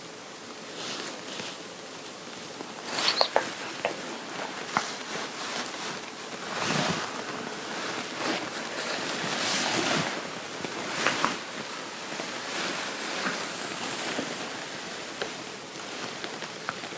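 Fabric rustling and swishing as a garment is handled and adjusted by hand, in uneven soft swells with a few small clicks and taps.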